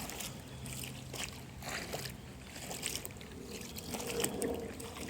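Shallow water trickling and sloshing, with small irregular splashes.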